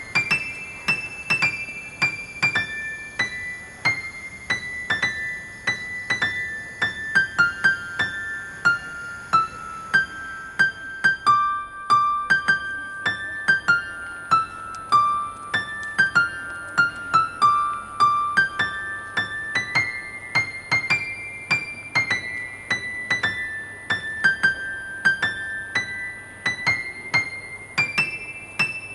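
Background piano music: a gentle melody of single struck notes at a steady, unhurried pace.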